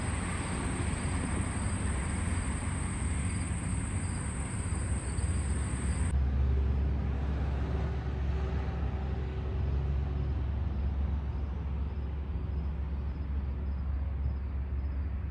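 Steady road-traffic rumble from a busy street, heard outdoors with no speech. A thin, high, steady tone runs over it and stops suddenly about six seconds in.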